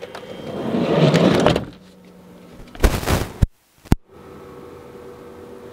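A van door opening and shutting: a rising rushing scrape, a loud burst that cuts off abruptly, and a sharp click, followed by a steady hum inside the van.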